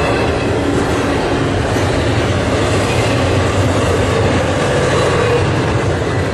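Double-stack intermodal container train's well cars rolling past: a steady, loud rumble and rattle of steel wheels on the rails with some clickety-clack.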